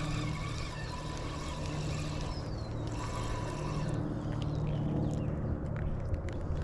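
Steady rushing of creek water, with a low hum underneath and a few faint ticks.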